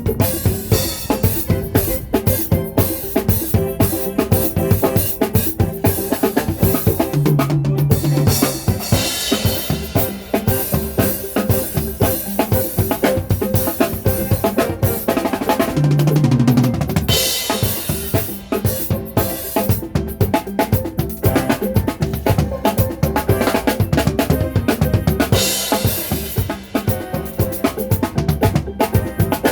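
Live band playing, led by a drum kit in a busy, steady rhythm with kick drum and snare to the fore, and held pitched notes from the other instruments underneath.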